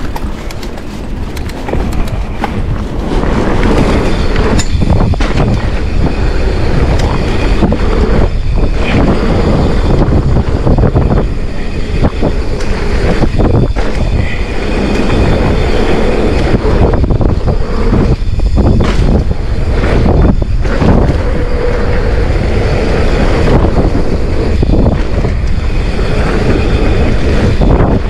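Mountain bike riding down a dirt trail: tyres rumbling over the ground and the bike rattling, getting louder over the first few seconds as it picks up speed.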